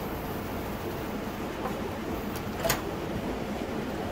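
Steady workshop hum with a few light clicks and one sharper knock a little before the end.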